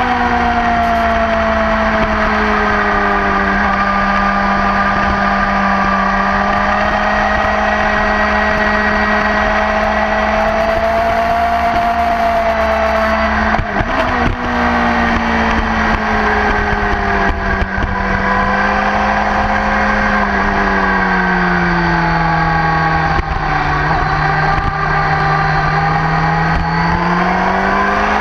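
Sport motorcycle engine running hard at track speed, seen from a camera mounted on the bike, with wind rushing past. Its pitch holds steady for most of the time, breaks briefly about halfway, sinks for several seconds later on and climbs again near the end as the bike leans into a corner.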